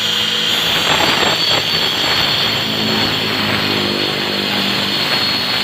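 Angle grinder running at speed with a steady high whine, cutting 15 mm plywood.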